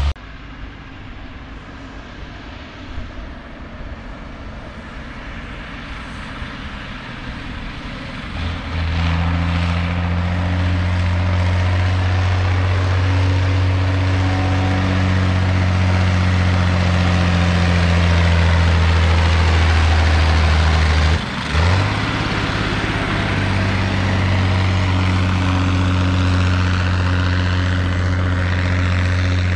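Ursus 1201 tractor's six-cylinder diesel engine running as the tractor approaches, growing louder over the first eight seconds or so. It then turns into a loud, steady low drone close by, with a brief dip around two-thirds of the way through.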